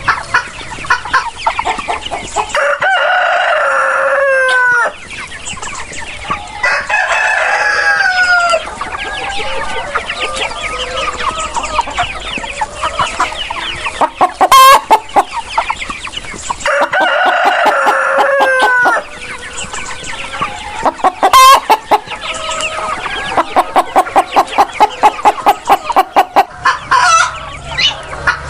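Chickens: roosters crow three times, each crow ending in a falling note, over continuous hen clucking. Two loud, sharp squawks come in the middle, and a fast run of clucks at about four a second comes near the end.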